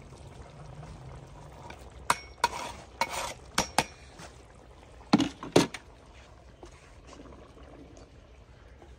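A metal spoon clinking against a kadhai as chopped green chillies are stirred into the kebab gravy: a run of sharp clinks with a brief ring about two seconds in, and two more a little after five seconds.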